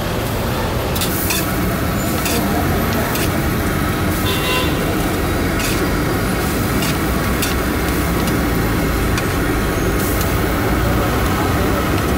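Steady rumble of passing street traffic, with sharp metallic clicks of steel spatulas tapping and scraping on a hot iron griddle as hotcakes are turned. A short high tone sounds about four and a half seconds in.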